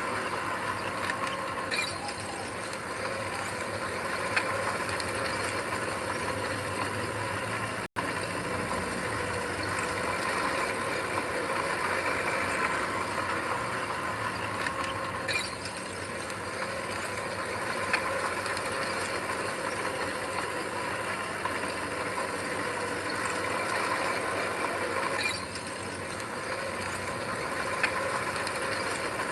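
Heavy earthmoving machine's diesel engine running steadily, with mechanical clanking and rattling over it. The sound cuts out for an instant about eight seconds in.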